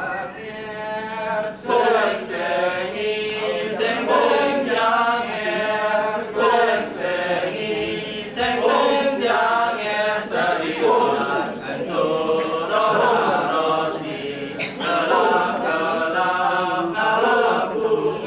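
A male chorus performing Balinese Kecak, many voices chanting and singing together without instruments in short phrases.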